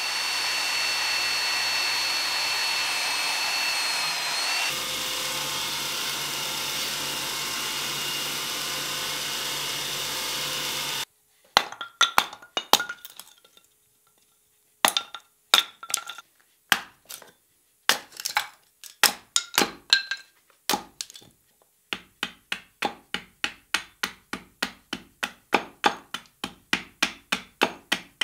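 A power saw runs steadily for about eleven seconds, cutting the wooden tomahawk handle to length, then stops. After a short gap come sharp hammer taps on wood, scattered at first, then a quick steady rhythm of several a second.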